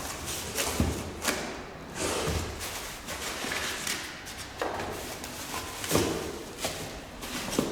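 Handling noise from unpacking a boxed device: a few separate knocks and thumps, about one every second or two, as the box and machine are moved and set down.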